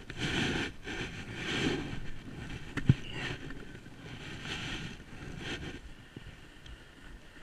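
Snowboard scraping over snow and wind rushing over an action camera's microphone, coming in uneven surges, with one sharp knock about three seconds in.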